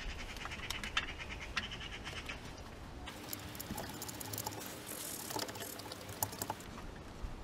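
Faint small clicks and scraping of a metal oil-sump drain plug being threaded back in by hand, scattered irregularly.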